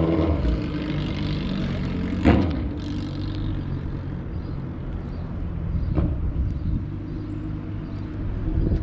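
Suzuki Hayabusa inline-four motorcycle engine running, with a sharp loud crack about two seconds in and a smaller one about six seconds in.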